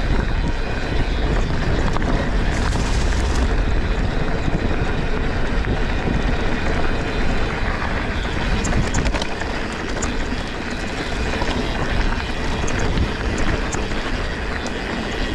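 Wind buffeting a GoPro's microphone and mountain-bike tyres rumbling over a rough trail on a fast descent. There is a steady rush with heavy low rumble and a scatter of small sharp clicks about nine seconds in.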